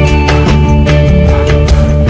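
Pop-rock band playing an instrumental passage: electric guitar over sustained chords and a steady drum beat, with no singing.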